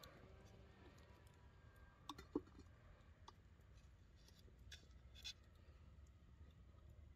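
Faint knocks and clicks of firewood sticks being laid on the metal lid of a pan over a wood fire: a few scattered taps, the loudest about two and a half seconds in.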